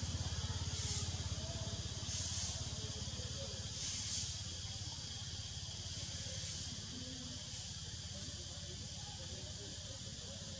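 Outdoor ambience of insects buzzing in repeated high, hissing pulses about every second and a half, over a low, steady engine hum that slowly fades.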